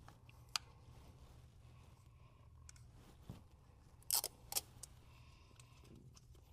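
Small plastic gear being handled: a sharp click about half a second in, then a quick cluster of louder clicks a little after four seconds, over a faint steady room hum.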